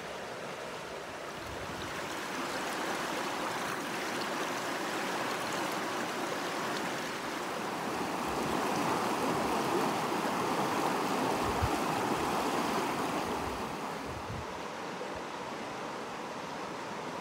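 Creek water rushing over rocks in a shallow rapid, a steady rushing that swells louder through the middle and eases off near the end.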